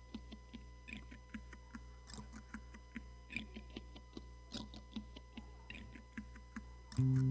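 Soft, quick clicking, about four clicks a second, over a faint steady electrical hum. Near the end an acoustic guitar chord is struck loudly and rings on.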